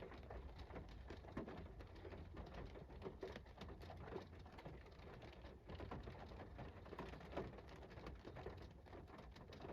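Faint rain: scattered raindrops pattering as light irregular ticks, over a low steady hum.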